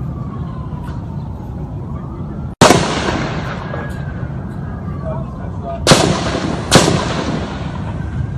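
Three gunshots with echoing tails: one about two and a half seconds in, then two more about a second apart near the end.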